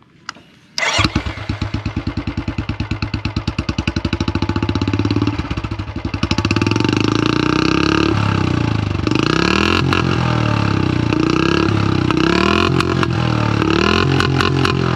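Royal Enfield Classic 350 BS6's single-cylinder engine through a long-bottle 'Bada Punjab' aftermarket silencer, starting up about a second in and idling with an even, loud thump. From about halfway it is revved in a string of repeated blips, rising and falling.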